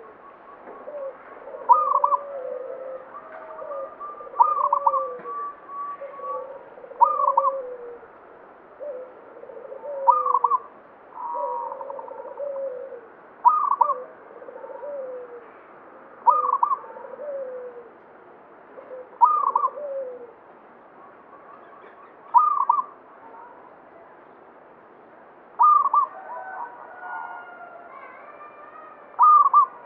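Zebra dove (perkutut) cooing, repeating its song phrase about every three seconds: a sharp higher note over lower falling coos, which fade out about two-thirds of the way through.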